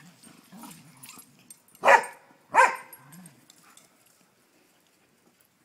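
Dogs at rough play: low growling, then two loud barks in quick succession about two seconds in, followed by a short growl.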